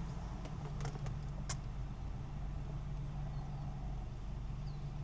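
Car engine idling, heard from inside the cabin as a steady low hum, with a few light clicks in the first couple of seconds.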